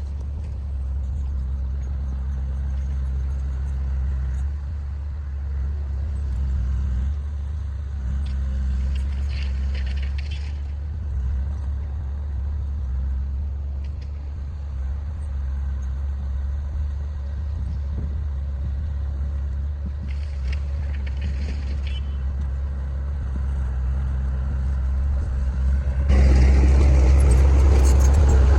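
Diesel engine of heavy earthmoving machinery (a road roller or bulldozer) running steadily with a deep, low drone, getting suddenly louder near the end.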